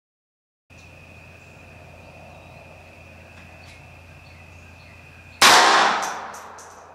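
A single shot from a Bersa Thunder 380 Plus pistol firing a .380 ACP Hornady Critical Defense 90 gr round, a sharp crack about five seconds in that dies away over about a second, with a few short clicks after it. Before the shot there is only a faint steady hum with a thin high tone.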